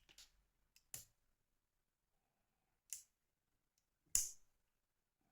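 A few sharp plastic clicks and taps as the small parts of a Nokia N73 mobile phone are handled during disassembly, the loudest about four seconds in.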